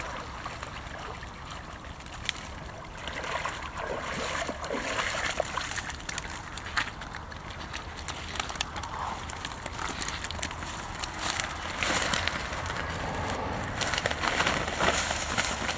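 Water sloshing and running off a mesh fishing keepnet as it is lifted out of a river, with splashing from wading and scattered clicks and rustles as the net is handled.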